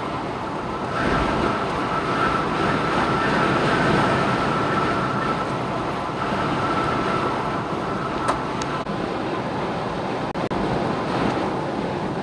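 Storm-force wind roaring, with a steady high whistle running through it for most of the time.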